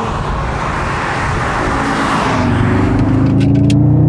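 Audi RS Q3 Sportback's 2.5-litre turbocharged five-cylinder engine under way over tyre and road noise. It pulls harder from about two and a half seconds in, its pitch rising. A few sharp clicks come near the end.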